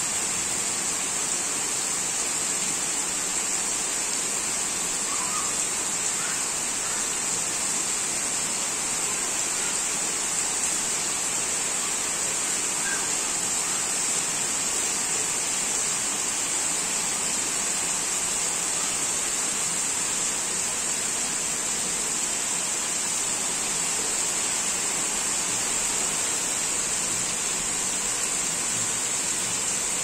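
Heavy rain pouring down in a steady, even hiss.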